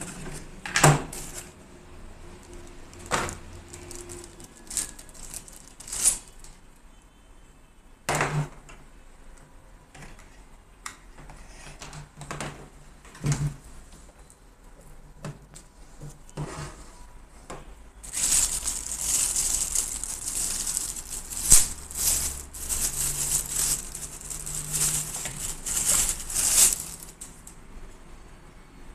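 Unboxing handling noise: scattered clicks and knocks of a small plastic device, cardboard packaging and cables on a desk. Past the middle comes a long stretch of loud, dense crinkling from a clear plastic bag holding a power adapter.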